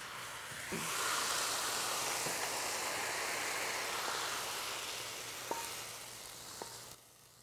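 Hot wok sizzling as stir-fried bean sprouts and glass noodles are tipped out onto a plate, with a few light knocks of a wooden spatula. The sizzle fades and stops about seven seconds in.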